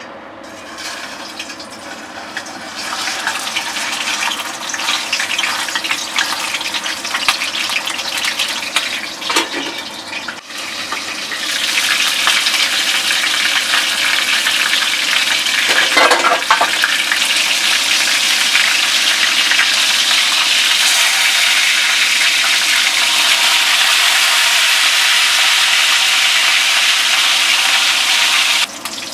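Whole besugo fish frying in hot oil in a pan: sizzling and bubbling that builds over the first few seconds after the fish goes in. It breaks briefly about ten seconds in, then runs louder and steady until it cuts off near the end.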